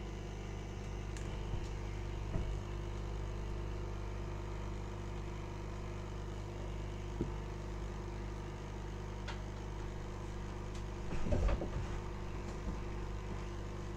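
Steady electrical mains hum. A few faint clicks, and a short patch of small handling noises about eleven seconds in.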